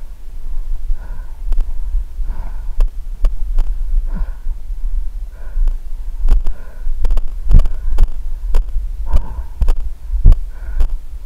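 Heavy breathing and footsteps on rough ground, picked up by a body-worn camera: a breath about every second and a half over a low rumbling thud and scattered clicks as the camera knocks and rubs with each stride.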